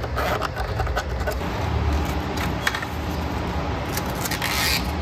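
Hand tools working brittle plastic crankcase-vent pipes loose in an engine bay: scattered small clicks and scrapes, with a longer scraping rustle near the end, over a steady low hum.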